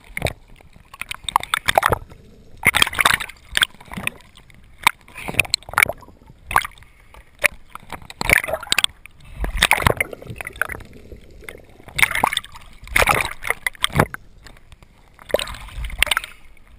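Sea water splashing, sloshing and gurgling around a camera bobbing at the surface, half in and half out of the water. It comes in irregular splashes about every second or so.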